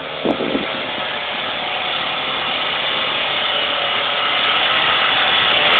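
Off-road SUV climbing a steep dirt track under engine load, its engine and tyres growing steadily louder as it comes up close.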